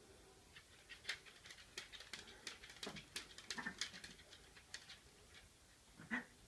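Ragdoll kittens scuffling in a play fight on carpet: a quick, irregular run of scratchy taps and soft thumps from paws and claws, then one short louder sound just after six seconds.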